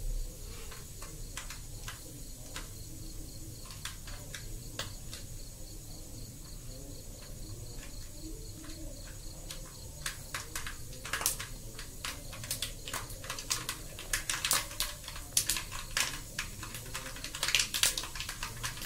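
Mustard seeds popping and spluttering in hot oil while tempering: scattered sharp pops, sparse at first and growing more frequent from about ten seconds in.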